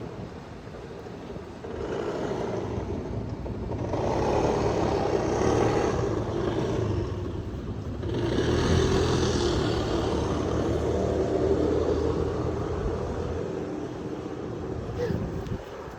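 A train running past on the rails, a steady rumble that grows louder about four seconds in and eases off near the end.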